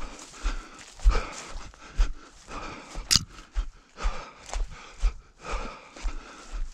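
An orienteer's running footsteps on forest ground, regular thuds at about two steps a second, with a sharp snap about three seconds in.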